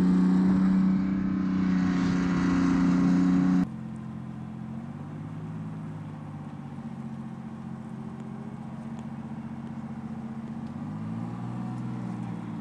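LAV-25 light armored vehicle's diesel engine running loud, heard from on top of the moving vehicle; about three and a half seconds in the sound drops abruptly to a quieter, steady LAV engine hum heard from the shore, rising slightly in pitch near the end.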